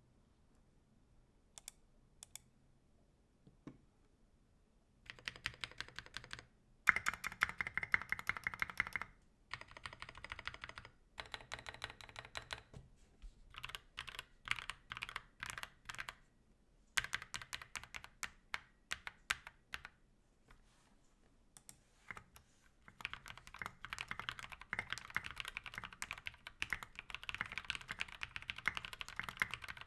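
Typing on a 65% mechanical keyboard with lubed NovelKeys Cream linear switches, a brass plate and SA-profile keycaps: a few single keystrokes at first, then fast runs of typing broken by short pauses.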